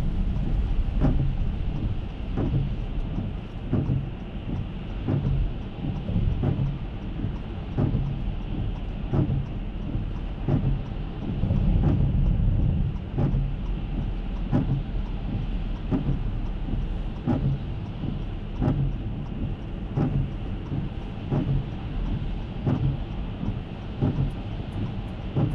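Heavy rain drumming on an SUV heard from inside the cabin, over a low engine and road rumble, with a sharp tick repeating about every 0.8 s.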